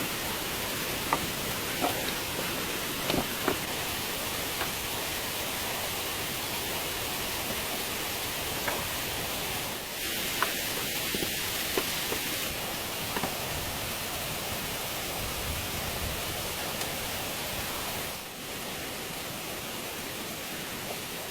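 A steady rushing hiss, with scattered light knocks and taps on top, a few close together near the start and again about halfway through.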